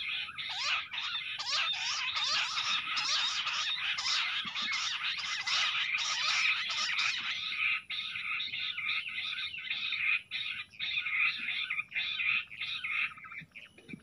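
A covey of bush quails calling together: a dense chorus of rapid, overlapping whistled chattering notes, which thins a little about halfway through.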